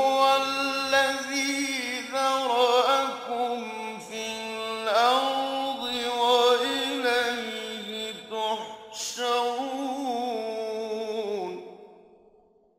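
A man's solo melodic Quran recitation (tajweed): one long phrase of drawn-out, wavering, ornamented notes that fades out about twelve seconds in.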